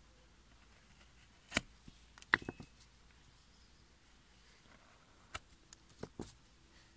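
Hand wood-carving gouges working a wooden board: scattered sharp clicks and knocks in a few small clusters, with quiet between them.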